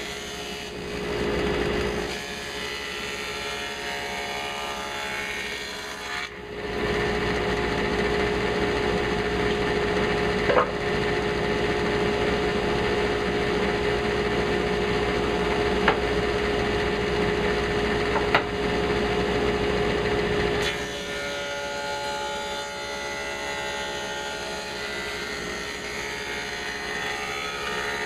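A power tool running on wood with a steady whine. It gets louder about six seconds in, holds for about fourteen seconds with a few sharp clicks, then drops back to a quieter level.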